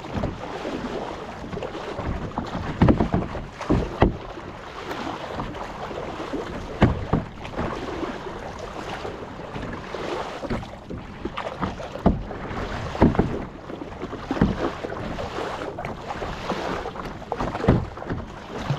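Kayak paddles dipping and splashing into seawater in an uneven stroke rhythm, about one splash every one to two seconds, sometimes two in quick succession, over a steady rush of wind and water.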